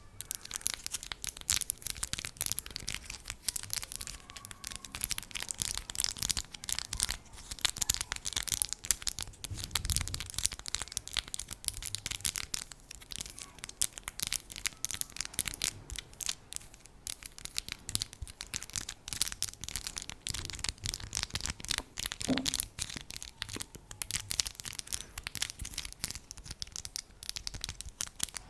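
ASMR tapping: quick, irregular taps and light scratches on an object, many per second and without pause.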